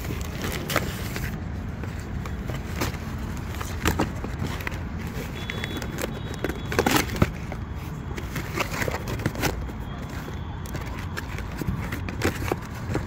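Cardboard box being handled around a firework cake: scattered rustles, scrapes and taps of the cardboard as the flaps are folded and pressed, loudest about seven seconds in, over steady outdoor background noise.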